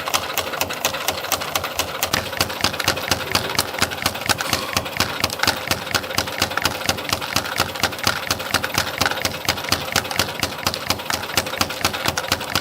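CNC compression-spring coiling machine (YHM CF-310) running in production, coiling 0.8 mm wire: a steady mechanical whirr with a rapid, even run of sharp metallic clicks, several a second, as each small spring is formed and cut off.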